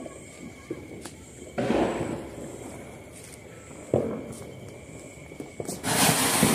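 Diwali firecrackers going off: a bang about a second and a half in and a sharp crack about four seconds in. Near the end a ground fountain firework (anar) starts with a loud, steady rushing hiss of sparks.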